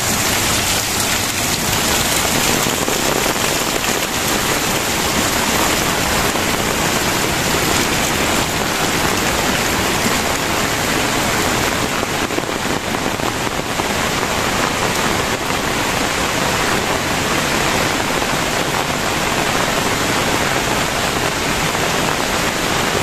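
Heavy rain pouring steadily onto dense foliage and wet, muddy ground, an even unbroken hiss.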